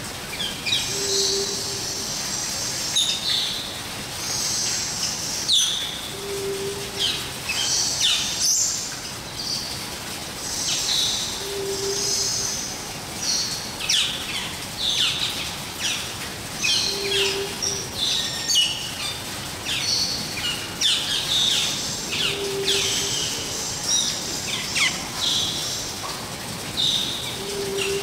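A chorus of aviary birds chirping and calling, with many quick high notes and short sweeping calls throughout. A short low note comes back about every five seconds.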